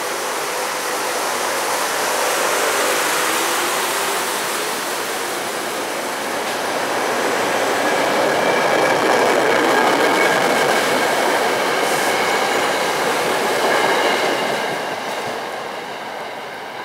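SEPTA Silverliner IV electric commuter train pulling out of the station and rolling past close by, its wheels rumbling on the rails. A whine rises in pitch in the first few seconds, and the noise is loudest as the cars pass, with steady high tones from about seven seconds in. It fades near the end as the train moves away.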